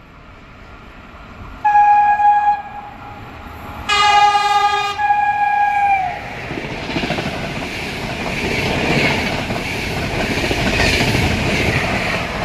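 Intercity passenger train sounding its horn twice, first a short blast and then a longer two-note blast that sags in pitch as it ends. The train then runs past on the nearby track with a building rush and clatter of wheels on rail.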